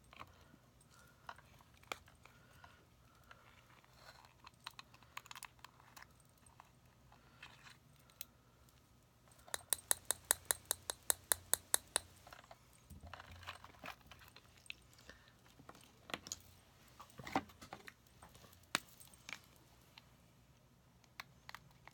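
Small clicks and taps from handling cosmetic packaging, with a quick, even run of about a dozen clicks around the middle.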